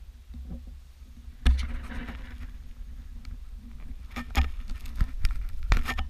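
Sea kayak being paddled: a paddle stroke splashes about a second and a half in, then several sharp knocks and drips follow near the end, over a steady low rumble on the camera's microphone.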